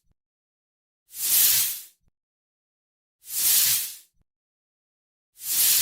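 Snake hissing: three long, separate hisses about two seconds apart, with silence between them.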